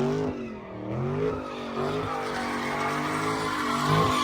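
A Kia doing burnouts or slides, its engine revving up and down while the tires squeal, the squeal growing louder toward the end.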